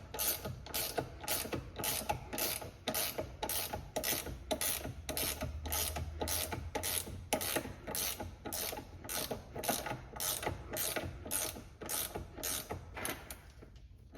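Socket ratchet clicking in a steady rhythm, about two to three clicks a second, as it turns the nut on a bushing press tool to draw a stiff STI steering rack bushing into the rack. The clicking stops just before the end.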